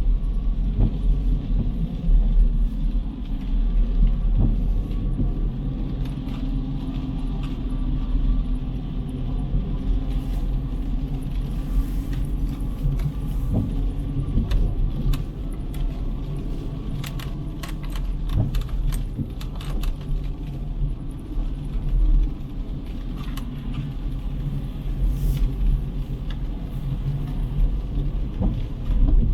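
City street ambience: a steady low rumble of road traffic, with scattered sharp ticks and clicks through the middle stretch.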